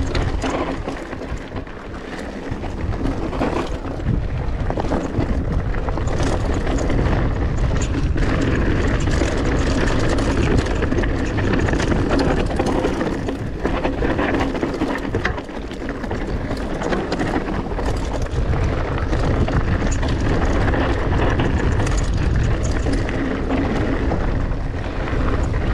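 Mountain bike being ridden over a rough trail: steady wind buffeting on the microphone, with tyres crunching over rocks and the bike rattling and clattering over bumps throughout.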